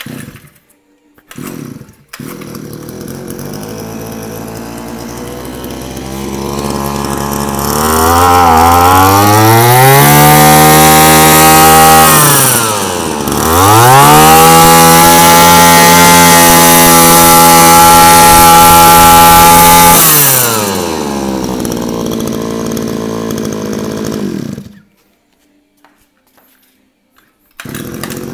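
Shindaiwa 25cc two-stroke brush cutter engine pull-started and catching, idling, then revved up to full throttle twice with a brief drop between, settling back to idle and switched off, in a test run.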